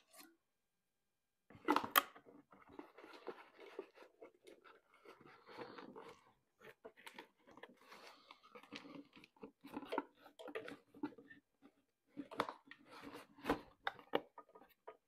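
Handling noise of a coiled rubber hose and a boxed smoke machine being packed into a cardboard box: irregular rustling and scraping against cardboard with scattered sharp clicks and knocks, the first sharp knock coming after a short quiet spell.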